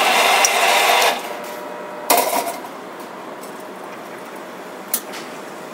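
Retro food vending machine finishing its cycle: its mechanism runs until about a second in and stops, then a clunk with a brief rattle as the bowl is delivered to the dispensing hatch, and a single click near the end.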